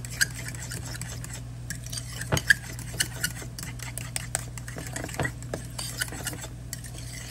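A spoon stirring a thick sauce mixture in a glass bowl, clinking and scraping against the glass in irregular taps, the loudest clink about two and a half seconds in. A steady low hum runs underneath.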